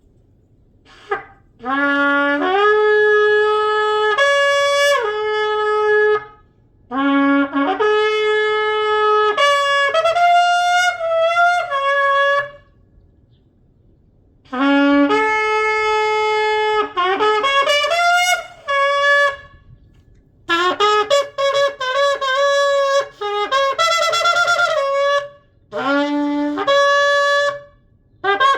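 A 51-inch kudu horn shofar is blown in five loud blasts separated by short pauses. Each blast starts on a low note and steps up to higher notes. Near the end come short broken notes and a wavering note.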